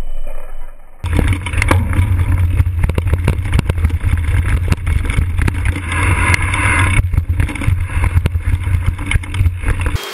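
Mountain bike riding on a dirt trail, heard through a bike-mounted action camera's microphone. Wind buffets the mic as a heavy, uneven rumble, with frequent sharp clicks and rattles from the bike over rough ground. It starts abruptly about a second in.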